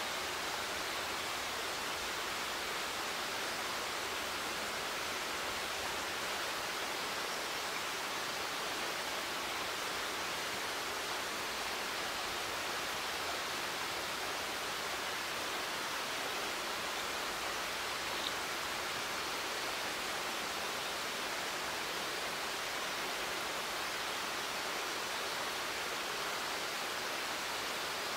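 Steady outdoor ambience in a forested gorge: an even rushing hiss that never changes, with a single faint click about eighteen seconds in.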